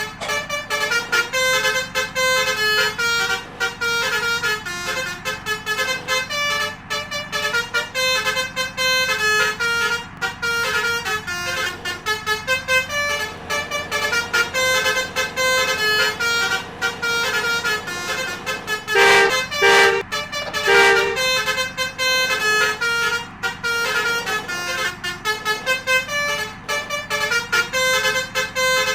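Telolet basuri multi-trumpet musical horn playing a continuous melody of stepped notes, with three louder blasts about two-thirds of the way through, over a low steady rumble.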